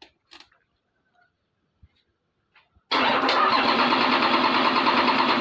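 A Toyota 1HD-FTE 4.2-litre straight-six turbo-diesel being started. A loud, steady engine sound comes in suddenly about three seconds in, after a few faint clicks.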